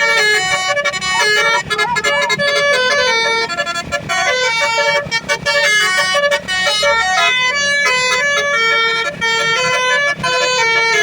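Telolet basuri bus horn playing a fast melodic tune of quick, stepping notes, loud and unbroken, over a low rumble.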